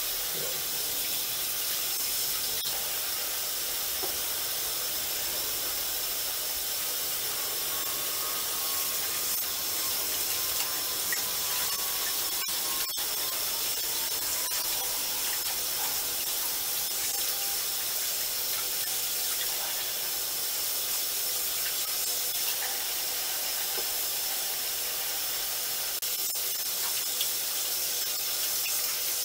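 Bathroom faucet running steadily into a sink, the stream splashing over hands that wash a makeup sponge.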